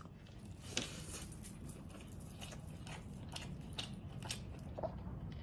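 A person chewing a mouthful of rice and chicken eaten by hand, with faint, irregular wet clicks and smacks of the mouth.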